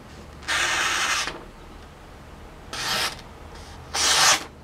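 Bark River Lil Canadian fixed-blade knife slicing through a sheet of paper in three strokes: a longer one about half a second in, a shorter one around three seconds, and the loudest near the end. The cuts are not clean: the blade keeps snagging in the same place, which the owner suspects is a little ding in the edge.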